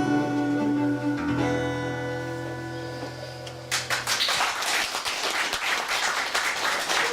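Guitar-led music holds a closing chord that slowly fades, its bass dropping out; a little over halfway through, applause breaks out suddenly and continues.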